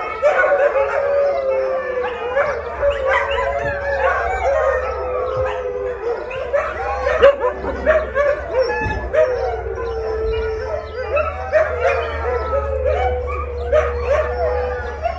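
A pack of huskies howling together, one long steady howl held under many overlapping yips, barks and whining cries: hungry dogs clamouring for their dinner. A low steady hum runs beneath.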